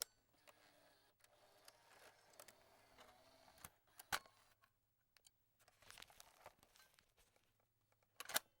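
Cassette being ejected from a cassette player: faint plastic rustling and small clicks of the mechanism and tape, with a sharp click about four seconds in and a louder double click near the end.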